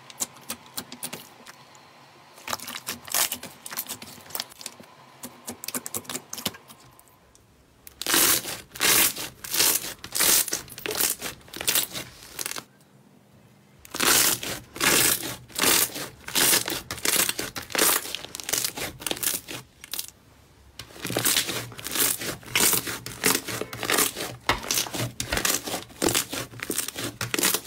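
Hands kneading, pressing and stretching thick glossy slime, making dense runs of sticky clicks, pops and crackles. The sounds are soft for the first several seconds, then much louder, with a short pause about halfway.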